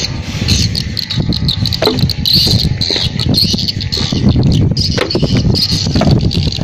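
Insects shrilling steadily in a high band over a low rumble, with a few scattered knocks from footsteps on a bamboo-slat walkway.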